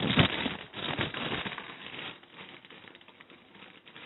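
A knock, then crinkly rustling for about two seconds that fades out: bunches of elderflower heads being handled as they are taken up to go into the pot.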